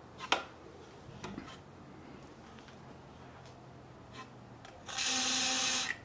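Aerosol hairspray can hissing for about a second near the end as propellant is sprayed through its straw into the potato cannon's one-way fuel valve, fuelling the combustion chamber. Before it come a sharp click and a few light knocks as the can and plastic chamber are handled.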